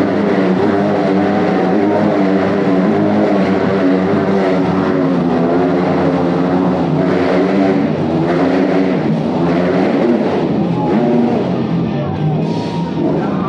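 Motorcycle engines revving continuously as riders circle inside a steel-mesh globe of death, with the pitch rising and falling as they speed up and ease off.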